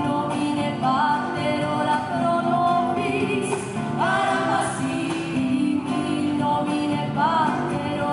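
Live band playing Peruvian música criolla for a marinera limeña, with singers carrying the melody in phrases of held, wavering notes over the accompaniment.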